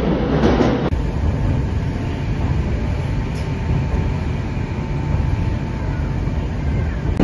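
Moscow metro train running, heard from inside the car: a steady rumble of wheels on rails with a faint steady whine. The sound changes abruptly about a second in.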